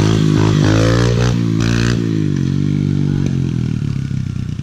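Kawasaki KLX110 pit bike's small single-cylinder four-stroke engine revving up and down as the rider holds a wheelie, then running steadier and lower after about two seconds.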